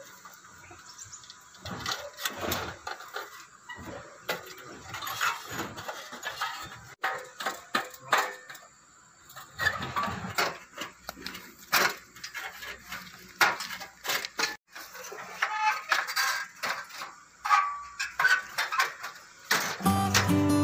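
Rusty steel pipe frame sections being handled and fitted together by hand: irregular metal knocks, clanks and scrapes. Acoustic guitar music comes in near the end.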